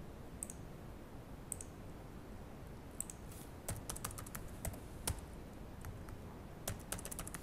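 Keystrokes and clicks on a computer keyboard and mouse. A few single clicks about a second apart, then a run of keystrokes in the middle, and a quick flurry of keys near the end.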